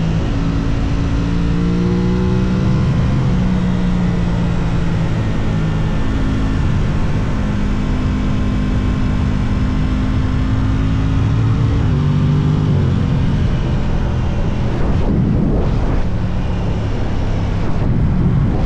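Aprilia RS660's parallel-twin engine pulling through the gears on a ride, its note holding, rising and stepping down with a gear change about twelve seconds in, under wind noise.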